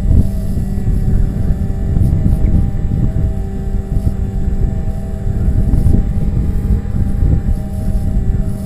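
Bixler RC glider's electric motor and propeller running with a steady hum, heard through its canopy-mounted camera under loud, rumbling wind rush.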